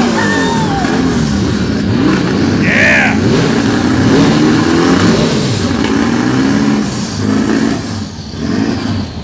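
Engine of a rusty rat-rod Volkswagen Beetle running and being revved up and down repeatedly. A short high-pitched sound cuts through about three seconds in.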